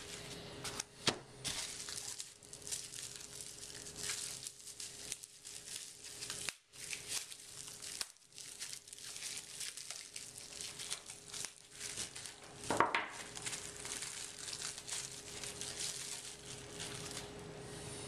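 Plastic bubble-wrap packaging crinkling and rustling as it is unwrapped by hand, with small clicks of the batteries being handled. There is one louder crackle about two-thirds of the way through.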